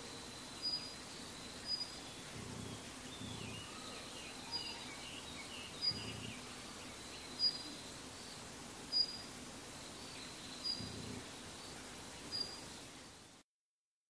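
Male Daurian redstart giving its thin, high "hit" call, a single short note repeated eight times at intervals of a second or more. The sound cuts off abruptly near the end.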